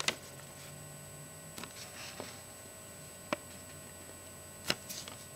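Quiet room tone with a few short, sharp clicks from a paper till receipt being picked up and handled, and a faint low hum for about a second near the start.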